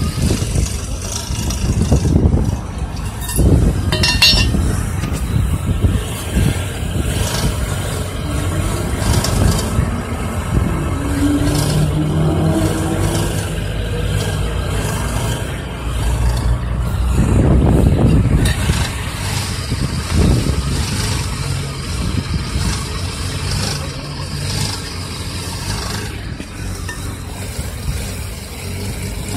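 Engine running low on oil, with a metallic rattle; the rattle is louder between about 1000 and 2000 rpm. The engine speed rises and falls a few times, with the longest rise about two-thirds of the way through.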